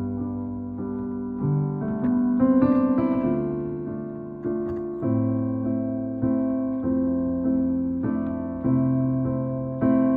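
Piano playing a slow run of chords, each struck and left to fade, roughly one a second, with a brief fast wavering passage about two and a half seconds in.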